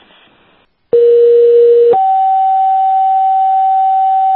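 Two-tone sequential paging tones over a radio dispatch channel, toning out a paramedic unit: a faint hiss, then about a second in a steady lower tone for about a second, followed by a higher tone held for about three seconds.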